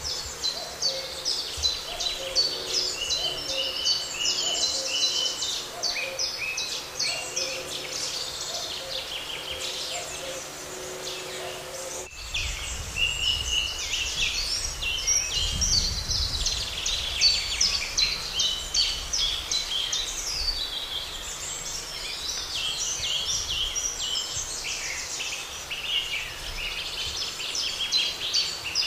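Dense chorus of songbirds chirping and trilling, with a low call repeated about once a second under it. The low call stops abruptly about twelve seconds in, where the sound changes sharply, and a low rumble comes in under the birdsong.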